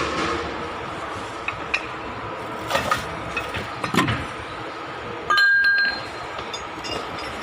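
Metal tools clinking and tapping against metal, with a few short knocks and a louder ringing clink about five seconds in, over a steady background hum.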